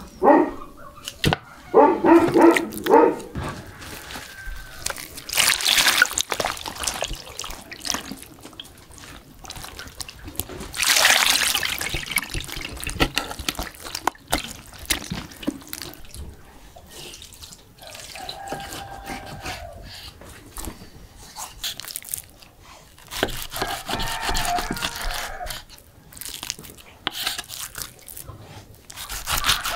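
Wet raw meat being handled and tossed in a metal bowl, with squelching and splashing, and a knife slicing meat on a wooden board. A few short spoken words are heard now and then.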